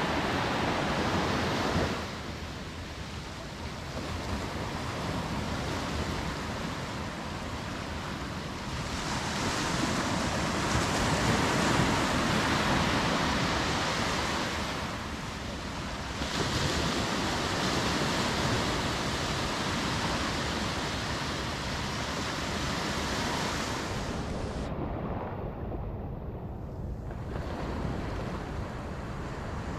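Small waves breaking and washing up a sandy beach, the surf swelling and easing every several seconds, with some wind on the microphone.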